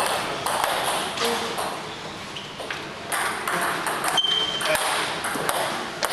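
Table tennis rally: the ball clicking sharply off the paddles and the table in quick succession, with clicks from neighbouring tables and voices in the hall behind. A short high squeak about four seconds in.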